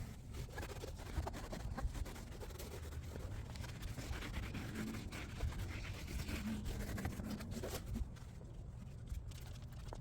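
A cloth rubbing and wiping over a car's surfaces, with small scratchy scrapes and light knocks.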